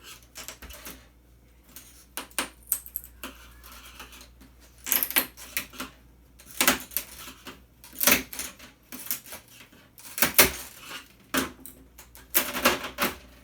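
Irregular clicks, snaps and clatter of small plastic and metal parts as a flat-panel display is pried apart by hand, its backlight tube connectors being worked loose.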